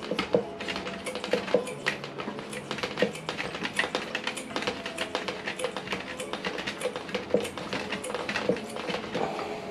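Hand pump on an Optimus fuel bottle being worked in and out about twice a second, each stroke a short click or clack, pressurising the bottle of petrol before the Polaris Optifuel stove is lit.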